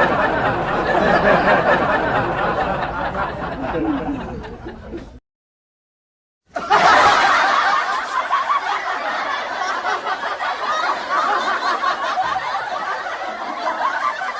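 Canned audience laughter: a recorded crowd laughs until about five seconds in, cuts off to a second of silence, then a second laugh-track clip of a crowd laughing starts and carries on.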